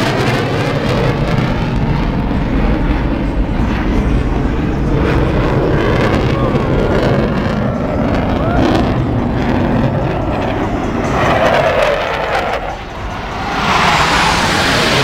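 Blue Angels F/A-18 Hornet jet engines, a loud continuous rumbling rush as the jets fly past. The noise dips briefly near the end, then swells again as another jet comes in.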